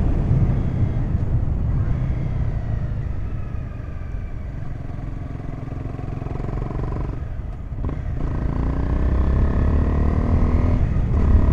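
Honda CBR250R single-cylinder motorcycle engine running on the road. The note eases off over the first few seconds as the bike slows. It cuts out briefly about seven and a half seconds in, like a gear change, then rises as the bike accelerates, with another short break near the end.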